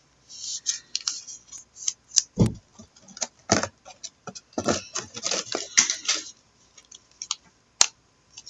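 Trading cards and plastic being handled close up: scattered soft rustles and a series of small sharp clicks and taps.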